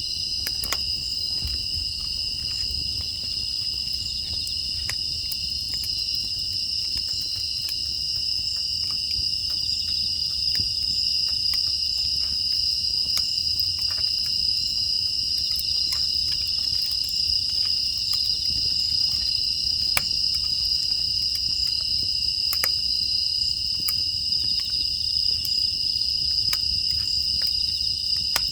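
A steady chorus of crickets and other grass insects, with scattered sharp crackles of burning firewood and a low rumble from the fire.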